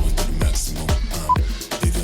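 Upbeat electronic dance backing music with a steady kick drum about two beats a second. A single short, high electronic beep sounds about a second in.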